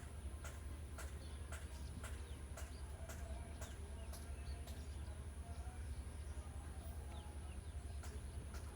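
Hens calling faintly in a poultry yard over a steady low hum, with sharp clicks repeating about twice a second.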